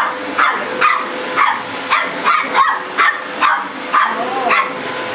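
A dog barks rapidly and repeatedly, about two barks a second, at a running vacuum cleaner, whose steady motor hum sits underneath.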